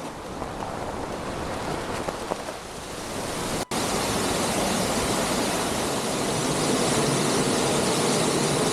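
Waterfall and river water rushing as a steady, even noise. It breaks off for an instant about three and a half seconds in and comes back louder.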